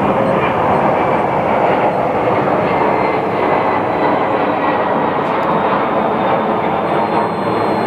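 Steady, loud rushing noise with no rhythm.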